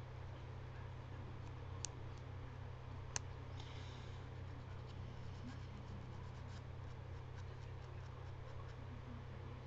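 Faint light scraping of a nail file on fingernails, roughing up the nail surface, with two sharp clicks about two and three seconds in and faint small ticks after. A steady low electrical hum underneath.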